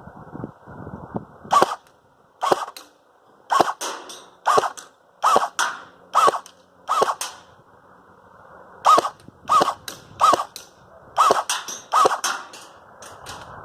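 Battery-powered airsoft electric gun, a CYMA SVD rebuilt as a bullpup, firing single shots. It fires about a dozen sharp cracks, roughly one a second, in two runs with a pause of about two seconds between them.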